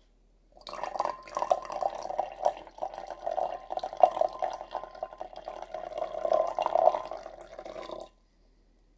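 Liquid poured in a stream into a glass beaker already holding solution, splashing for about seven and a half seconds and stopping abruptly near the end.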